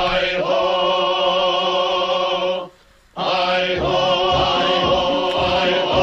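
Background music of long held choir-like chords. It drops out for about half a second near the middle, then resumes with low thumps underneath.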